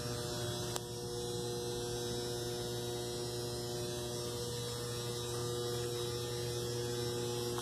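Steady electrical mains hum made of several constant tones, with a single faint click just under a second in.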